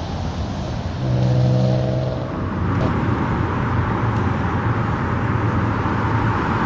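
Road traffic passing: a vehicle's engine drone about a second in, then a steady rush of tyre and traffic noise.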